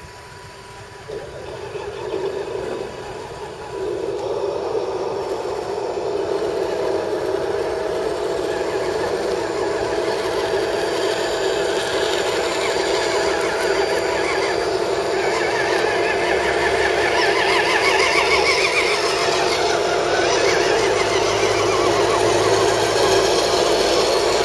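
Electric motors and geared drivetrains of several scale RC crawler trucks whining as they crawl up a dirt trail, growing steadily louder as the line of trucks comes closer.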